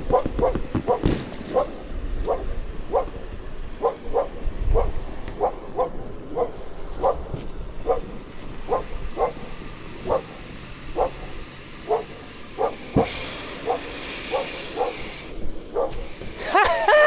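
A dog barks and yaps over and over, about twice a second. About thirteen seconds in a hiss of gas starts, pauses, and comes back louder near the end: the gas cylinder of a six-person Viking life raft inflating it.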